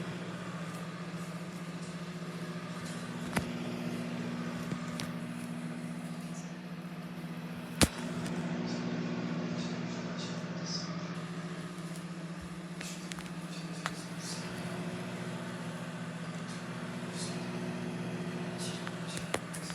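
Microwave oven running with a steady low hum, with a few sharp clicks, the loudest about eight seconds in.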